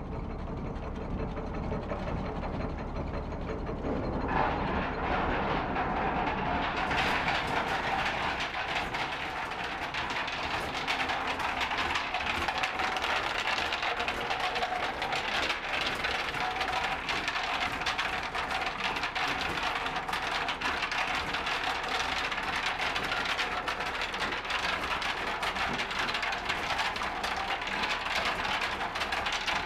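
Old ore-mill machinery running with a continuous, dense clattering rattle. It starts up about four seconds in, grows louder about three seconds later, and then runs steadily.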